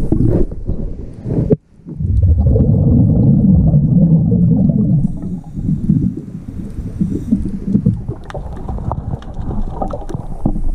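A diver's regulator breathing underwater, with the rumble and gurgle of exhaled bubbles. The bubbling breaks off briefly about one and a half seconds in, comes back loudest for a few seconds, then continues more quietly.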